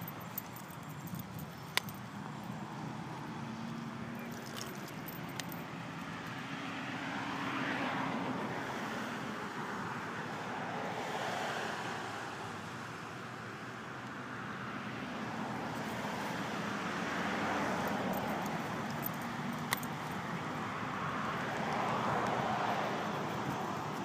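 Road traffic: cars passing one after another, the noise swelling and fading every few seconds.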